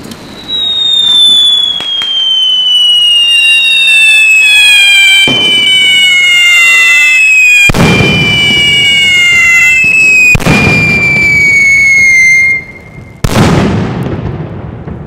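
Ground firework spraying sparks with a long whistle that slowly falls in pitch, broken by four loud bangs, the last coming just after the whistle stops.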